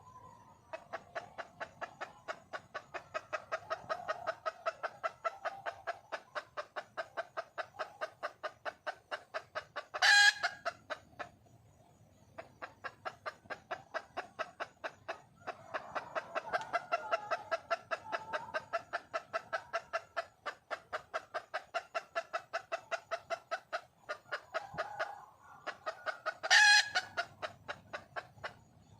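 Red junglefowl hen clucking in long rapid runs, about four clucks a second: a hen calling for a mate. Twice, about ten seconds in and near the end, a much louder brief call cuts through.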